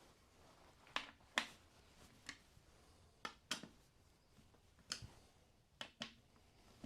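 Scattered sharp clicks and light knocks, about eight at irregular intervals: small metal tools and parts being handled during reassembly of the motorcycle's air filter cover.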